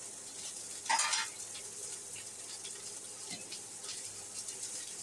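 Onions frying in a little oil in a stainless steel skillet: a steady high sizzle with light crackles. The heat is medium-high and hot enough to make the pan smoke. A brief louder rush of sizzle comes about a second in.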